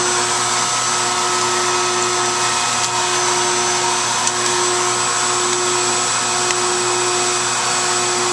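CNC router spindle running steadily with a constant high whine over a loud, even noise, milling the male piece of a wood inlay. A few faint ticks sound over it.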